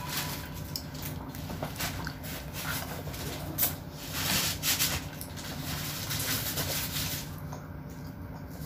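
A child eating spaghetti close to the microphone, slurping up noodles with a few short hissing slurps about halfway through, amid wet mouth and eating noises.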